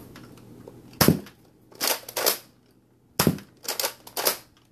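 Nerf Retaliator spring-powered dart blaster being pumped and fired: a series of sharp plastic clacks and shots in two groups.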